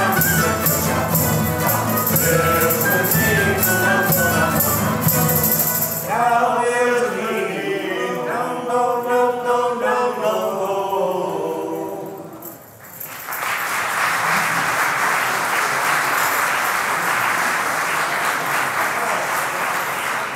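A traditional Portuguese Reis carol sung by a mixed folk choir with acoustic guitars, mandolins and accordion; about six seconds in the instruments thin out and the voices carry the final phrase to its close. Just after the middle the song ends and the audience applauds steadily.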